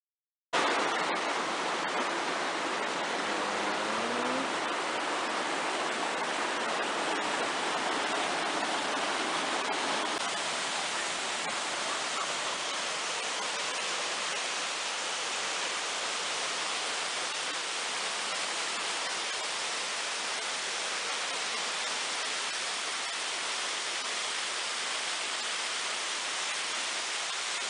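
Waterfall rushing: a steady, unbroken roar of falling water.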